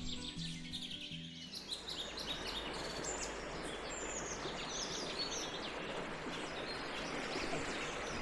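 Fast-flowing brook rushing steadily, with small birds chirping and singing throughout. Background music fades out about a second and a half in.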